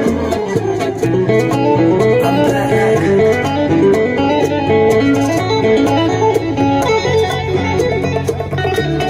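Bachata music in an instrumental guitar break: a lead guitar plays quick rising and falling runs over bass and percussion, with no singing.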